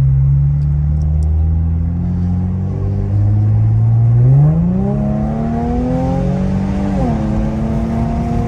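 Infiniti Q50 Red Sport's twin-turbo 3.0-litre V6 under hard acceleration, heard from inside the cabin. The revs climb steadily, then rise quickly about four and a half seconds in. About seven seconds in they drop with an upshift and pull on.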